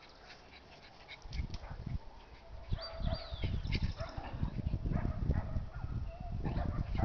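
Two small dogs barking and yelping in short, irregular bursts as they tussle, starting about a second in, over low rumbling on the microphone.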